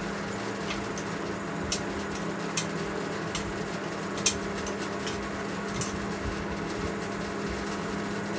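A handful of light metallic clicks from an open-end wrench turning the nut on a pump's through-bolt, spread irregularly over a steady low hum.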